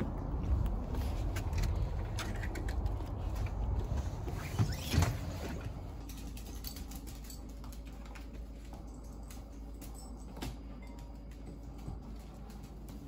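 Footsteps with rustling handling noise and a couple of louder knocks about five seconds in. Then quieter scattered small clicks and taps as a cat and a small dachshund move about the feeding bowls on the floor.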